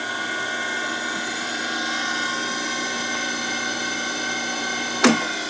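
A rebuilt 2 hp, 3600 RPM three-phase spindle motor on a surface grinder runs with a steady, even whine, sounding healthy after its bearing rebuild. Near the end a sharp click sounds as the stop button is pressed, and the whine begins to fall as the motor starts to coast down.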